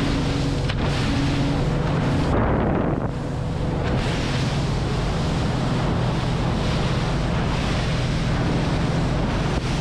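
Boat underway at cruising speed: a steady engine hum under wind buffeting the microphone and water rushing past the hull.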